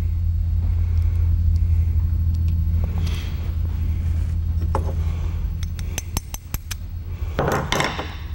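Small steel trigger parts of a sidelock shotgun clicking and clinking as they are fitted together by hand, a few single clicks followed by a quick cluster of clinks near the end. A steady low hum runs underneath.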